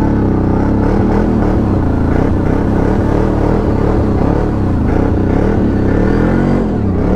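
CFMoto 1000 ATV's V-twin engine revving up and down while the quad drifts and spins on ice, its pitch rising and falling repeatedly.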